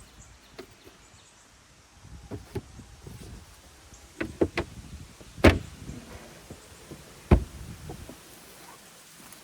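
Clunks and knocks of a van door being worked and items handled: a few light knocks, then two sharp, loud clunks about two seconds apart.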